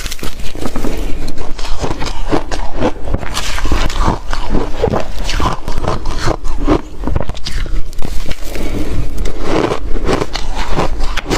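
Close-up chewing of re-shaved refrigerator ice: rapid, irregular crunches of teeth breaking the ice, loud and continuous.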